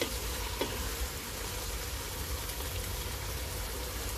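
Mixed vegetables sizzling steadily in a nonstick pot, with a wooden spatula knocking against the pot twice in the first second as they are stirred.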